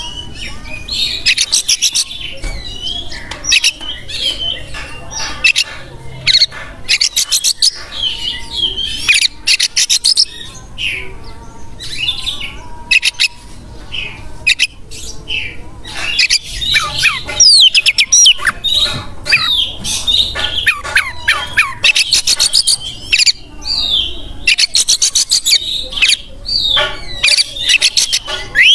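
Oriental magpie-robin (kacer) singing vigorously and without let-up: loud, varied phrases of sweeping whistles mixed with fast rattling trills and harsh notes, with short gaps between phrases.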